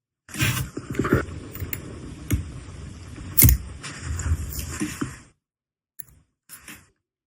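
Small metal watch parts and tools being handled on a bench: a run of clicks and scraping, with one sharper click about three and a half seconds in, then a few faint taps near the end.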